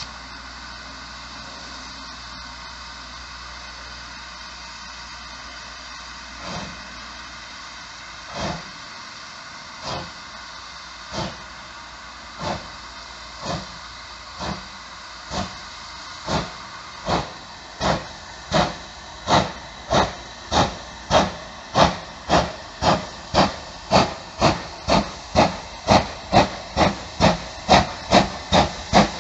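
LMS Ivatt 2MT 2-6-0 two-cylinder steam locomotive starting away with a seven-coach train. After a few seconds of steady hiss, its exhaust beats begin about six seconds in. They are slow and well spaced at first, then quicken and grow louder as the train gathers speed, reaching about two a second by the end.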